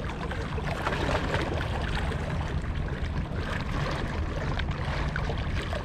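Small waves lapping and sloshing against the shore in irregular little splashes, over a steady low rumble.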